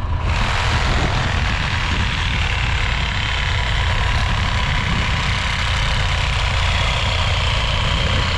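An engine idling steadily, with a steady rushing noise over it that starts just after the beginning.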